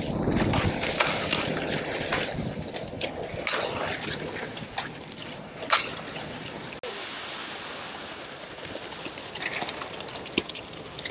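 Wet concrete pouring and sloshing, a rushing, trickling sound broken by sharp clicks. About seven seconds in it cuts to a quieter, steady hiss with a few clicks.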